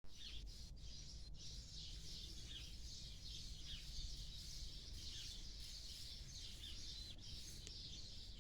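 Faint chorus of small birds chirping, many short calls overlapping, over a low steady rumble.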